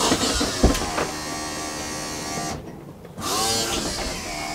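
Travel trailer's electric slide-out motor running when the newly replaced slide-out switch is pressed. It stops for about half a second a little past the middle, then starts again in the other direction. There is a sharp knock about half a second in.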